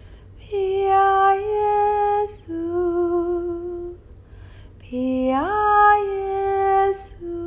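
A wordless female voice hums a slow lullaby-like melody in two phrases of long held notes with slight vibrato. One note slides up to a higher pitch partway through the second phrase.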